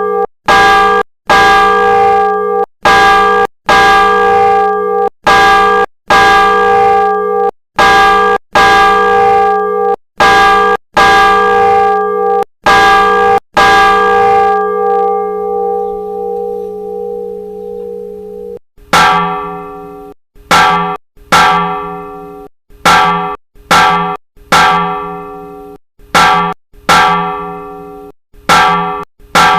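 Church bells of the Old Cathedral of Santa María in Vitoria: one bell struck about once a second, then left to ring out and fade; a few seconds later a second, different-sounding bell starts striking at a similar steady pace.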